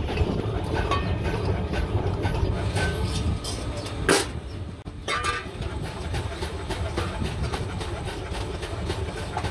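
Large lever shears cutting around the rim of a sheet-iron pan: a run of metallic snips and clicks, with one sharp clack about four seconds in. A steady low machine rumble runs underneath.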